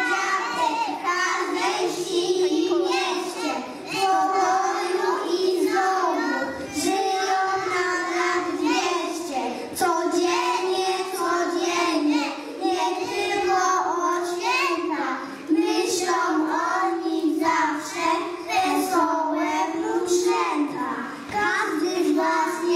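A group of young children singing together in unison, in continuous phrases.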